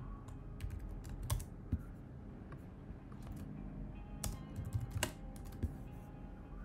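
Computer keyboard typing: scattered, irregular key clicks as code is edited, with a few louder strokes, the loudest about four and five seconds in.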